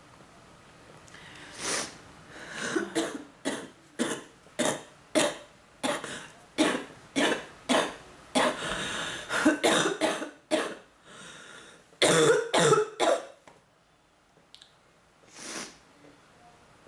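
A woman's bronchitis coughing fit: a long run of coughs, about two a second for several seconds, then two tighter clusters of coughing, a pause, and a last single cough near the end.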